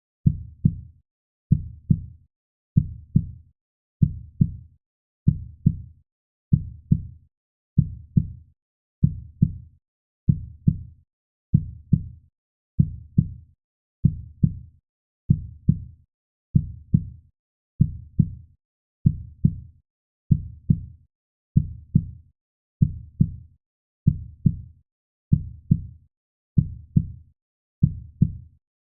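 Heartbeat sound: low, paired lub-dub thumps repeating evenly, about one double beat every second and a quarter, with silence between beats.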